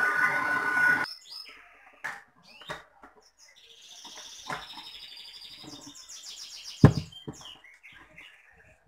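Electric stand mixer kneading dough, its motor hum stopping abruptly about a second in. Then small birds chirp and twitter, with scattered knocks from the steel bowl and dough hook being handled and one loud thump near the end.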